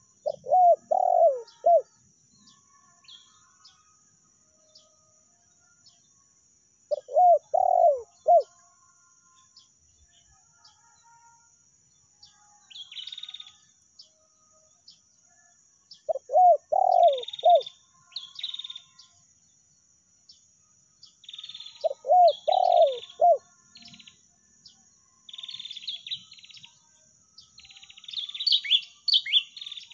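Spotted dove (tekukur) cooing: four phrases of several low notes each, spaced several seconds apart. Small birds chirp at a higher pitch between them, more and more toward the end, over a steady high hiss.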